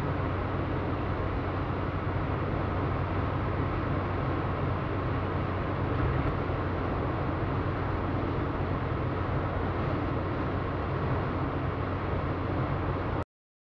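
Steady background noise with a low hum, unchanging throughout, cutting off abruptly near the end.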